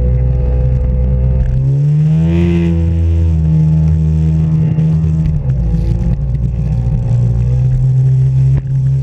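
Jet ski engine running at speed, its pitch climbing as it revs up about two seconds in, dipping briefly a little past halfway, then holding steady.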